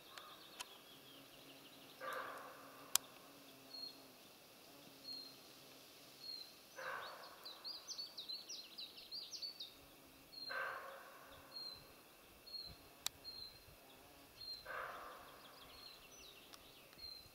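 Faint birdsong: a small bird repeats short high notes about once a second, with a fast trill in the middle. Four hoarse, bark-like calls about four seconds apart are the loudest sounds.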